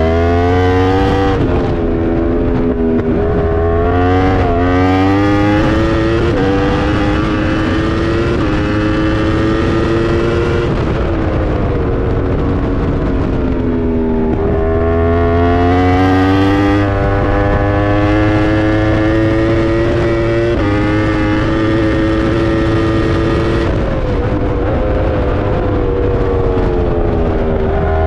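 Yamaha YZF-R1 endurance race bike's crossplane inline-four at full throttle, heard from on board. The engine note rises through a series of quick upshifts, each a sudden drop in pitch. About eleven seconds in the revs wind down, then it climbs through the gears again and winds down once more near the end. Wind rush runs underneath.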